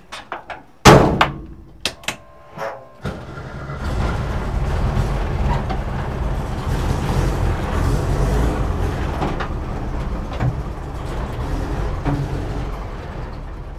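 A van door shuts with a loud thunk after a few clicks. About three seconds in, a 1969 Volkswagen Type 2 bus's air-cooled flat-four engine starts and runs with a steady low rumble as the bus pulls out.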